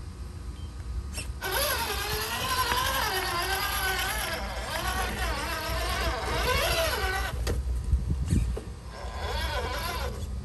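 Traxxas TRX-4 RC crawler's electric motor and gear drivetrain whining under load, its pitch wavering up and down with the throttle as it crawls over rocks. The whine comes in two spells with a pause of about a second and a half between them, and a couple of low knocks fall in that pause.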